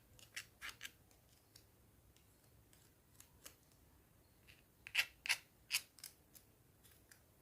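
Light, sharp clicks and taps in two short clusters, one near the start and a louder one about five seconds in, from a spoon stirring dissolving bread yeast in water in a small bowl.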